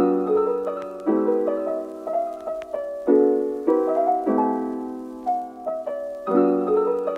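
Background piano music: gentle chords struck about once a second, each fading away, with a light melody over them.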